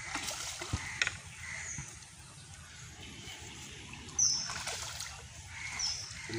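Hooked fish thrashing at the surface of a pond, splashing and churning the water, with the biggest splash about four seconds in.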